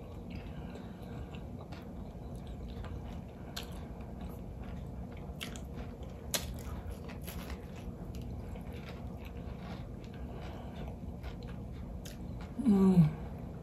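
Close-miked chewing and crunching of crispy fried catfish, with scattered small clicks and mouth smacks. Near the end comes a short 'mmm' of enjoyment that falls in pitch.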